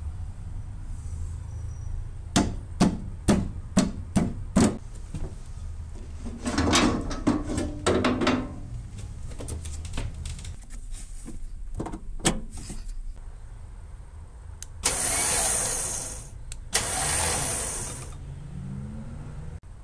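Vehicle engine running low and steady, under a quick run of about six sharp knocks a few seconds in and further clatter. Two loud rushing bursts come near the end.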